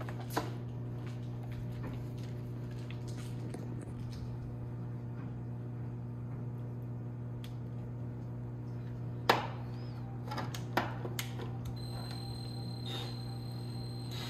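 Plastic TV back cover being pressed and knocked into place, scattered clicks and knocks with one sharp knock about nine seconds in the loudest. Near the end a cordless drill-driver's motor gives a steady high whine as it is set on a screw, over a steady low hum.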